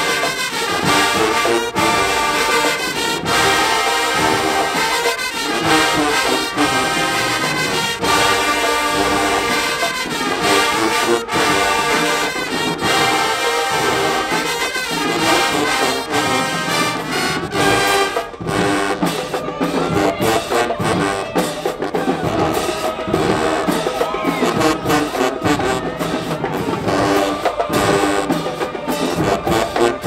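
A high school marching band's brass section, sousaphones, trumpets and trombones, playing a loud full-band tune. Sharp rhythmic hits stand out more about halfway through.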